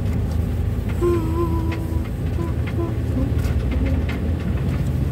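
Ambulance driving slowly over a rough, broken road, heard from inside the vehicle: a steady low engine and road rumble, with scattered rattles and knocks from the body.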